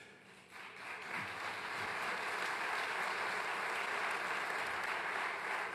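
Audience applauding, starting about half a second in, swelling quickly and then holding steady.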